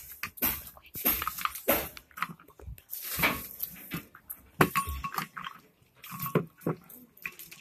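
Irregular clicks and knocks of ceramic bowls on a table while bread and water crackers are torn and dipped into bowls of water.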